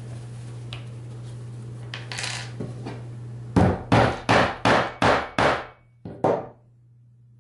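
Hammer blows: a run of six quick, sharp strikes about a third of a second apart, each ringing briefly, then two more in quick succession after a short pause. A few lighter taps come before them.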